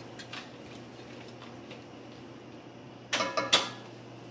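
Silicone spatula stirring chicken through broth in an enameled cast-iron pot, with faint light ticks, then two sharp clinking knocks with a brief ring about three seconds in.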